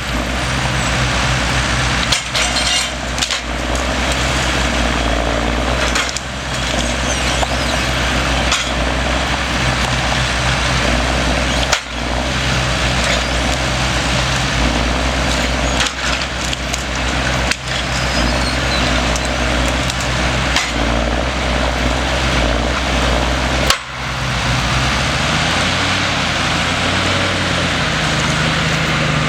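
Bruks wood chipper on a Timberjack 1410D forwarder running under load with the diesel engine, wood being chipped with a steady crackling and splintering and sharp cracks every second or two. Near the end the engine note rises.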